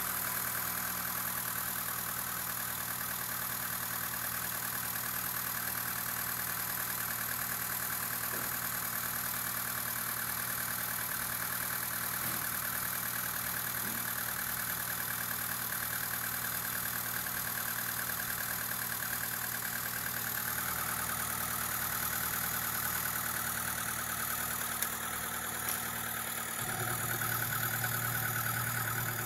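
Opel Astra F's X16SZR 1.6-litre eight-valve four-cylinder petrol engine idling steadily. It grows a little louder near the end.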